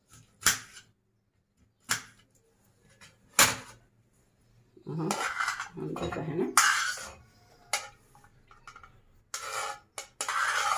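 A kitchen knife slicing cucumber on a plate, the blade clicking sharply against the plate three times. In the second half the knife scrapes chopped cucumber off the plate into a stainless steel bowl.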